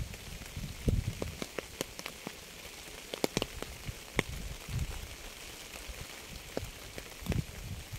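Rain falling: a steady hiss with many separate drops ticking close by, and a few low rumbles, the strongest about a second in and near the end.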